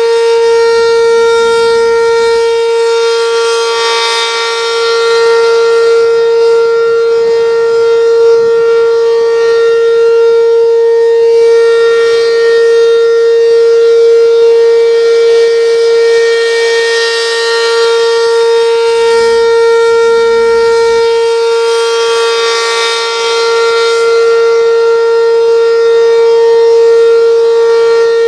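Restored Werden outdoor warning siren sounding a steady wail at a constant pitch during a test. Its loudness and brightness swell and ease every several seconds.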